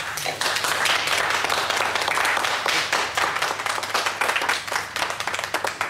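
A small gathering of people applauding, with many hands clapping at once. It starts suddenly and keeps going at an even level.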